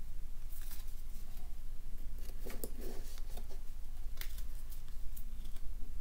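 Pokémon trading cards being handled: scattered light clicks and rustles, busiest about two and a half seconds in, over a steady low hum.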